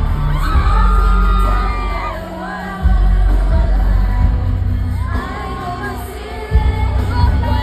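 Live pop song played loud through a stadium sound system with a heavy bass beat that drops out twice and returns, with singing over it and crowd screams and cheers.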